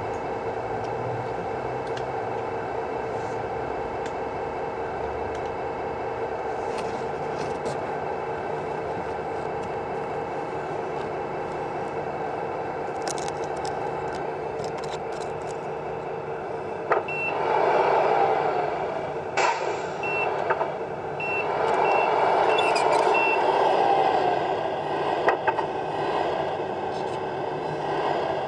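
Tamiya Scania R620 RC truck's sound unit playing a simulated diesel engine idling, then rising as the truck drives. A couple of short air hisses come partway through, followed by a string of high reversing beeps.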